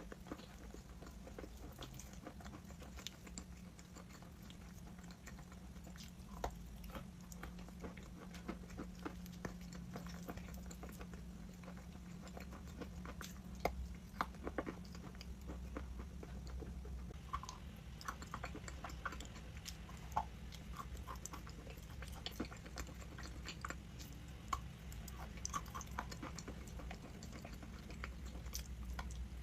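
Close-up chewing and crunching of crunchy chalk: many short, sharp crunches and clicks, uneven in rhythm, over a low steady hum.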